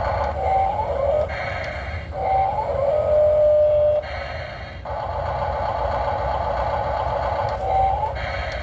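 Radio-controlled model excavator's motors and hydraulic pump whining as it works. The pitch glides upward several times, with a brief pause about four seconds in.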